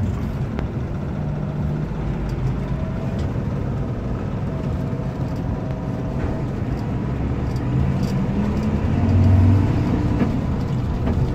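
Steady engine drone and road rumble heard from inside a moving passenger bus. The engine note rises and grows louder from about eight seconds in, peaking a little after nine seconds.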